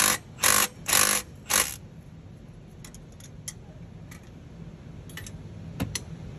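Hand ratchet being swung back and forth to run down a new nut on an EGR valve actuator pull rod: four quick ratcheting strokes about half a second apart in the first two seconds, then a few light metallic clicks.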